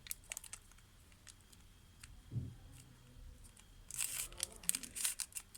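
Plastic Rubik's cube being twisted by hand: scattered soft clicks of the layers turning, a faint low thump about two seconds in, and a quicker run of clicking and rasping near the end.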